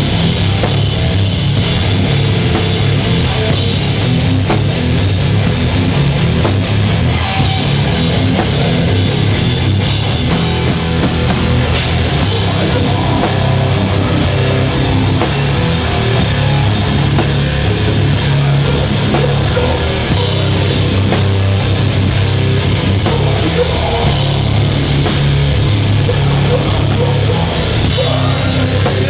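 Heavy rock band playing live and loud: distorted electric guitar through a 5150 amplifier, bass and a drum kit, continuous.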